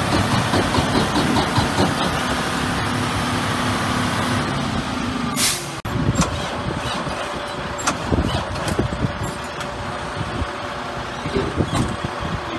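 Freightliner Coronado 122 truck's diesel engine idling steadily with the hood open. About five and a half seconds in, a short loud hiss cuts through, after which the engine sound is quieter, with scattered clicks.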